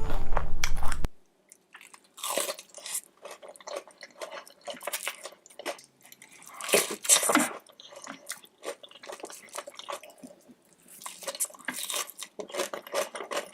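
Close-miked eating of seafood: crunchy bites and chewing in irregular clusters, loudest about seven seconds in. Music plays for the first second, then cuts off abruptly.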